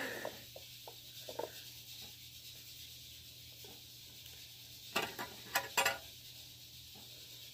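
A spoon scraping and scooping puree out of a small plastic baby food cup: a few faint clicks at first, then two or three short, louder scrapes about five to six seconds in.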